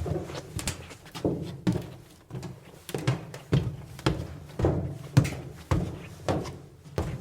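Footsteps in tennis shoes walking across metal bleachers: a steady pace of hollow thuds, about two steps a second, each with a low ring from the metal.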